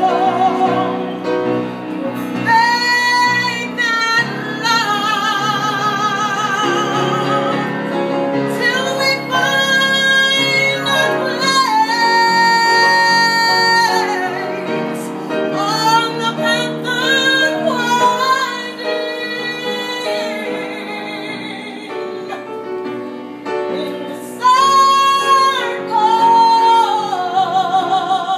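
A woman singing a song into a microphone over instrumental accompaniment, with long high held notes and vibrato.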